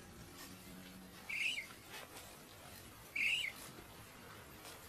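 Two short, high-pitched animal calls, about two seconds apart, each falling at the end, over faint bush background.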